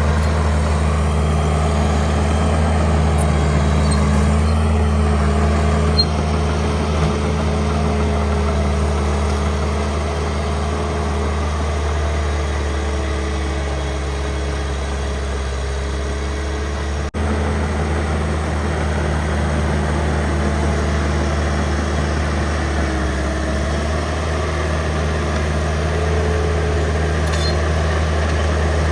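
An engine running steadily at a low, even hum. There is an abrupt break a little over halfway through.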